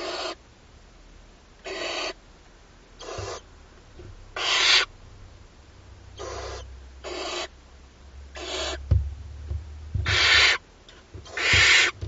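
Barn owl chicks giving repeated hissing, snore-like begging calls, about eight short hisses a second or so apart, some overlapping from different chicks. A few soft low thumps come near the end.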